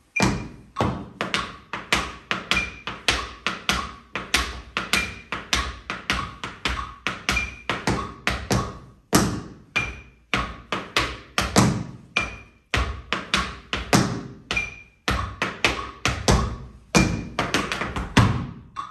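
Tap shoes striking a wooden floor in a rhythmic time step, a dense run of sharp metal taps and heavier heel drops. A metronome beep sounds at even spacing about every two and a half seconds underneath.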